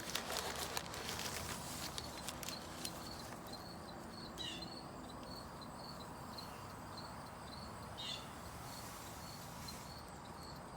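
Crickets chirping steadily in a fast run of short, high chirps, with three brief falling chirps spaced about four seconds apart. Light clicks and rustling in the first few seconds.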